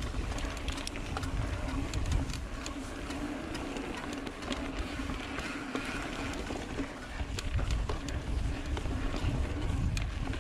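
Mountain bike rolling along a dirt singletrack: knobby tyres running over the ground with a faint steady hum, a low rumble, and frequent small ticks and rattles from the bike.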